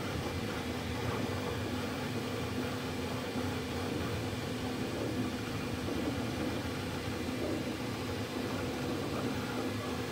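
Dremel 3D45 3D printer running mid-print: an even whirr of its fans with a low steady hum over it.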